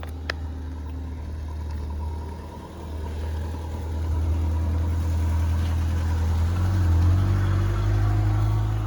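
A low engine rumble, growing louder from about four seconds in and peaking near seven seconds, with a short click just after the start.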